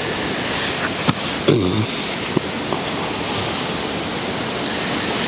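Steady rushing wind noise, with a sharp click about a second in and a brief low vocal sound just after.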